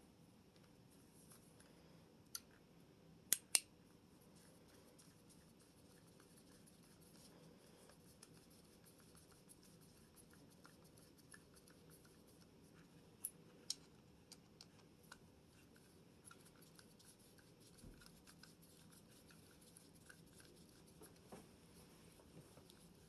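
Mostly quiet handling of a 1911 pistol and its grip panel, with a few sharp clicks and taps: one a couple of seconds in, a loud pair about three and a half seconds in, another pair about halfway through, and fainter ticks between. The sounds come from the grip panel, screws and Allen wrench being worked during the install.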